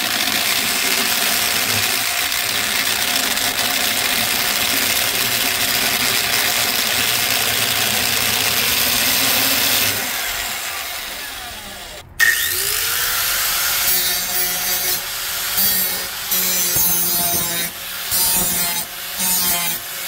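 Corded electric drill running steadily as it drills into a metal plate, dying away about ten seconds in. After a sudden break, an angle grinder spins up and grinds a metal plate in short, broken passes.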